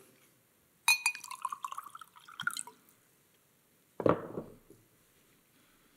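Water poured from a plastic bottle into a glass, the pitch rising as the glass fills, then a short clunk about four seconds in.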